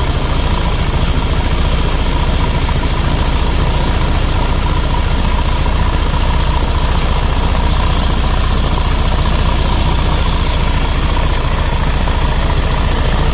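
Motorcycle engine idling steadily with its valve cover removed, the rocker arms and valves working in the open cylinder head. A fast, even firing pulse with a steady whine.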